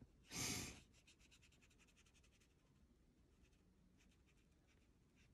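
Faint, rapid scratching of a colored pencil stroking across paper, after a brief soft rush of noise at the start.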